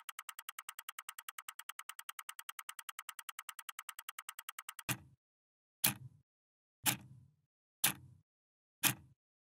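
Synthesized countdown sound effect: a fast run of electronic ticks, about ten a second, as the timer's numbers race down, then single hits with a low thud once a second, five in all, marking the final seconds of the countdown.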